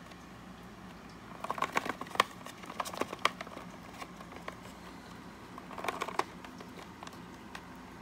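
Hard plastic clicks and knocks as a 3.5-inch hard drive is wrenched out of a lay-flat SATA docking station's slot. There are two bursts of clicking, a longer one from about a second and a half to three seconds in and a short one around six seconds.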